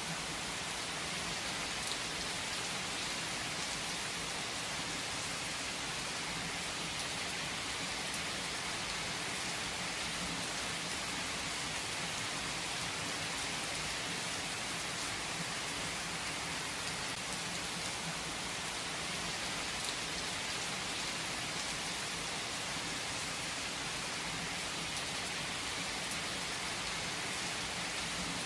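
Heavy rain falling steadily: an even, unbroken hiss with a few sharper drop ticks here and there.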